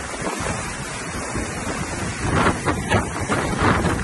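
Strong storm wind buffeting the microphone with a steady rushing noise. It gusts harder about two seconds in.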